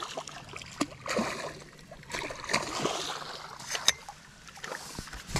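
Hooked common carp splashing and sloshing at the water's surface as it is played on a pole, with a few sharper splashes.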